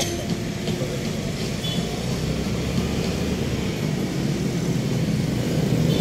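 Steady road traffic noise from cars and motorcycles passing on the street.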